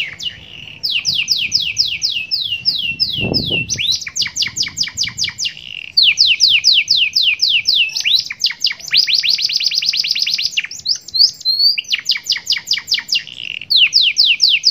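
Domestic canary singing a long, unbroken song of rapid trills, each phrase a fast series of downward-sweeping notes repeated several times a second. Its song carries phrases learned from the cinereous tit (gelatik batu).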